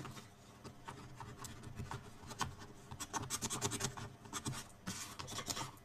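A bone folder rubbing over cardstock in a run of short scratchy strokes, burnishing the paper flat.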